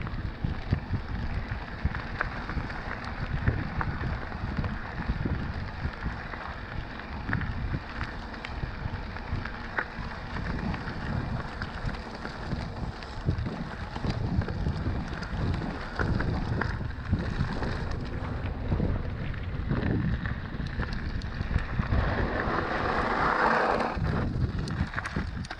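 Ride noise from a Scott E-Genius electric mountain bike on a trail: wind buffeting the microphone, a low rumble of fat tyres over rough ground, and many short knocks and rattles. A louder hiss comes in for a couple of seconds near the end.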